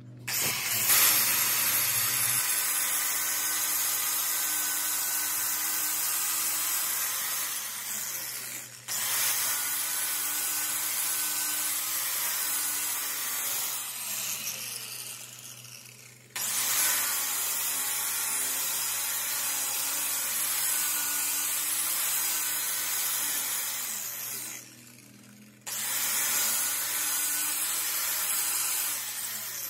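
Angle grinder disc grinding the rebuilt steel teeth of a differential pinion gear: a steady grinding noise with a motor whine in it, running in four long stretches that each start and stop abruptly.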